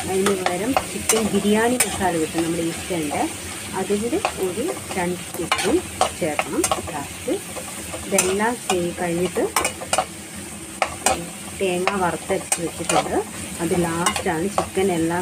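Sliced onions frying in a kadai while a spatula stirs them: a steady sizzle under repeated short scrapes of the spatula along the pan, with scattered clicks where it knocks the metal.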